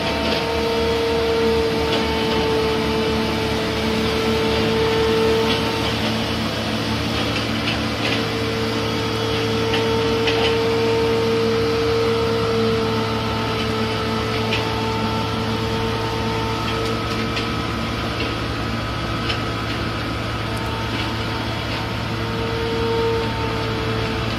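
Asphalt paver working as a dump truck feeds it asphalt: a steady machine drone with a high whine that wavers a little, and faint scattered ticks.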